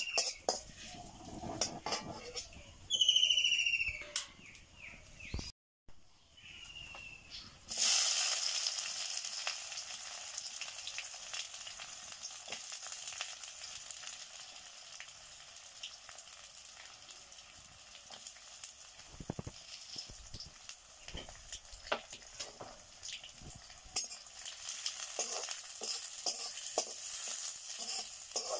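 Sliced onions sizzling in hot oil in an iron kadai. The sizzle starts suddenly and loud about eight seconds in and settles into steady frying, with a wooden spatula scraping and stirring, busier near the end.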